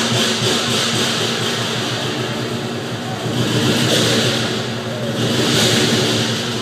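Lion dance percussion of drum, cymbals and gong played continuously and loudly. The cymbals' ringing swells about four seconds in and again near the end.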